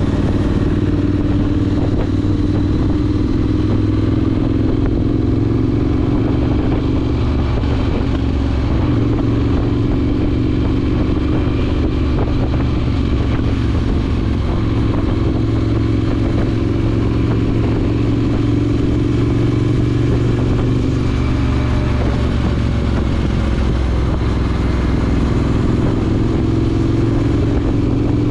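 Triumph Scrambler 900's 900 cc parallel-twin engine, fitted with an aftermarket ZARD exhaust, running at a steady cruise under way, its pitch shifting a little now and then, with wind and road noise.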